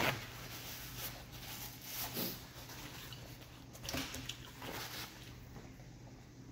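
A sheet of paper towel ripped off the roll, the loudest sound, right at the start. Then a few quieter, scattered handling and eating noises, including a drinking glass picked up about four seconds in.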